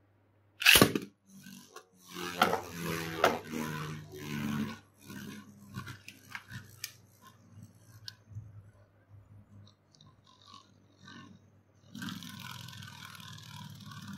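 A Beyblade spinning top launched from its launcher: a sharp snap of the launch about a second in, then the top landing and clattering around the plastic stadium. The rattling thins out to scattered ticks, and a steady hiss takes over near the end.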